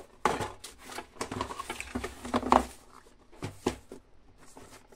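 Plastic DVD cases and a plastic sleeve being handled: irregular rustling with several sharp clacks of the cases, the loudest about two and a half seconds in.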